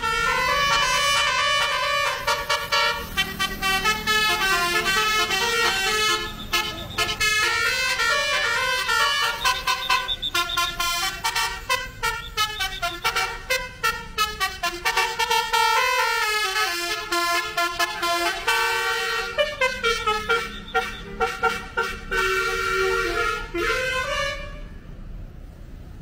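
Telolet (basuri) musical air horns of two tour buses playing a melody together in a duet, with quick short notes and held notes stepping up and down in pitch. The horns stop about 24 seconds in.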